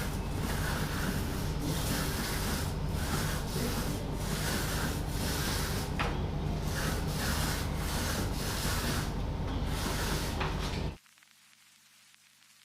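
Paint being applied to a wall in repeated strokes: a rubbing sound that pulses about once a second over a low steady hum. It cuts off suddenly about eleven seconds in.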